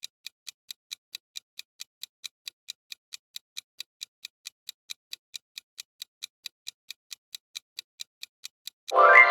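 Countdown clock sound effect ticking evenly, about four ticks a second, marking the guessing time in a quiz. Near the end a short pitched sound effect begins.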